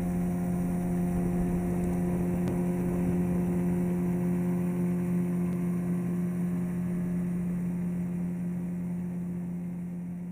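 Motorboat engine running at a steady speed, a constant hum that fades out near the end.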